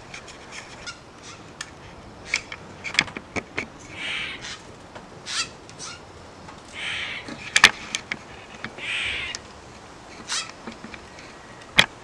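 Steller's jays calling: three harsh, rasping calls a couple of seconds apart, with a few sharp clicks in between.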